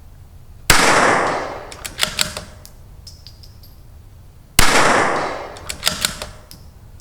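CZ 457 bolt-action .22LR rifle firing two shots about four seconds apart, each shot's report trailing off over about a second. After each shot comes a quick run of metallic clicks as the bolt is worked to chamber the next round.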